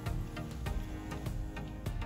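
Background music with sustained tones and a percussive beat.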